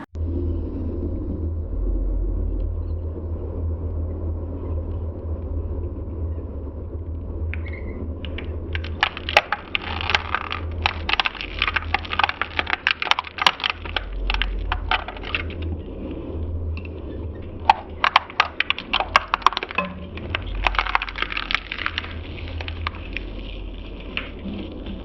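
Electric shredder running with a steady low hum. From about eight seconds in until near the end, its cutters crack and snap in quick irregular bursts as they chew through a plastic Barbie doll.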